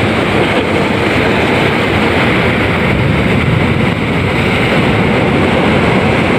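Sea surf breaking against a rock breakwater: a loud, continuous rushing rumble with no distinct breaks.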